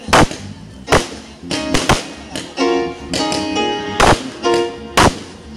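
Spanish-style guitar music playing, broken by loud sharp cracks at irregular intervals from fireworks going off.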